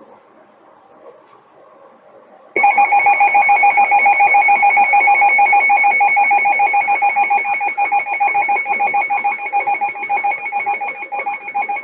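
NOAA Weather Radio alert tone from a weather radio receiver: a loud, steady, pitched tone that starts abruptly about two and a half seconds in and holds. It is the attention signal that opens a new warning broadcast, here a severe thunderstorm warning. Before it there is only faint receiver hiss.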